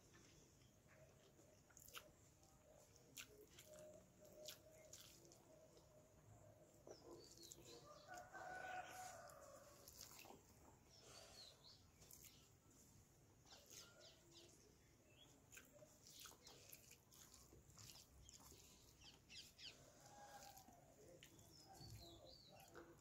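Faint eating sounds: light clicks of fingers working rice on a steel plate, with chewing. A rooster crows once in the background about eight seconds in, the loudest sound here, and another fainter call comes near the end.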